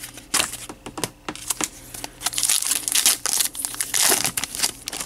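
A Goodwin Champions trading-card pack wrapper being torn and peeled open by hand: a run of sharp crinkling crackles, densest in the middle.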